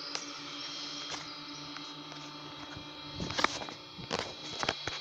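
Electric drive of a railway level-crossing barrier humming steadily as the boom rises, with several sharp clicks in the last two seconds.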